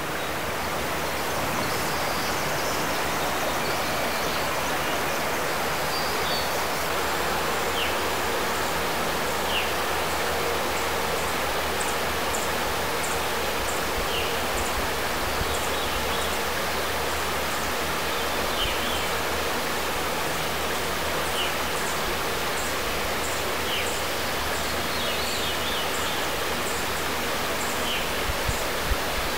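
Shallow river running over a gravel riffle: a steady rush of flowing water, with faint high bird chirps recurring through it.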